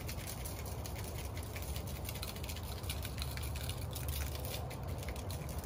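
Barbecue rub shaken from a shaker bottle, the granules pattering as a fast run of faint ticks onto raw chicken thighs on a foil-lined wire rack, over a steady low rumble.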